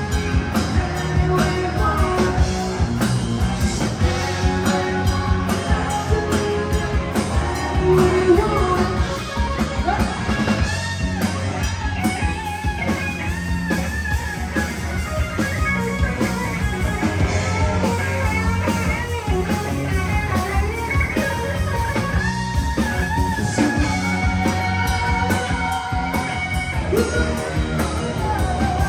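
Rock band playing live: guitar and drums, with singing.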